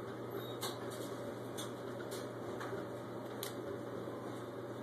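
Steady low room hum with a few faint, scattered light ticks.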